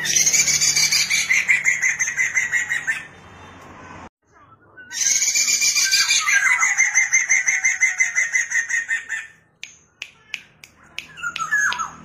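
Poksay mandarin laughingthrush singing two long phrases of fast repeated whistled notes, about two seconds apart. A few short clicks follow near the end.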